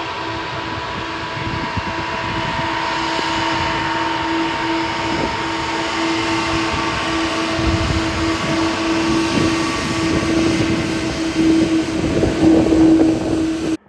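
Jet airliner engines running: a steady roar with a whine held on one pitch, growing louder near the end and then cutting off abruptly.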